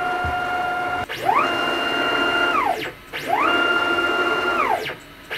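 Stepper motors of a desktop CNC router driving the gantry along its SFU1605 Y-axis ballscrews, with a stepper whine of several steady tones. That steady move ends about a second in. Then come two separate moves, each rising in pitch as the motors speed up, holding, and falling as they slow, with a short pause between. A third move starts near the end.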